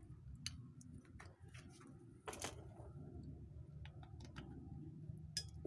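Faint scattered clicks and clinks of steel pliers handling a 3D-printed resin bullet mold and its lead sprue, with a sharper clink about two and a half seconds in and another near the end.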